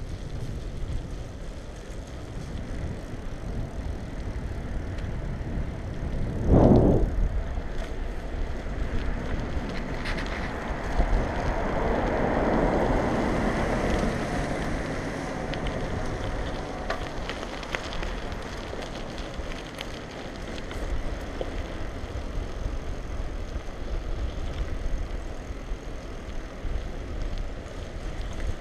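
Wind buffeting the microphone of a camera mounted on a moving bicycle, over a steady rumble of tyres on cracked asphalt with scattered light rattles from the bike. A sudden loud blast about six and a half seconds in, and a swelling, fading rush around twelve to fifteen seconds in.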